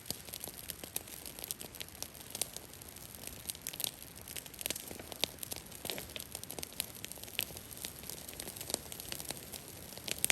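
Cedar branches crackling and snapping: many short, irregular pops and clicks, a few each second, over a faint steady hiss.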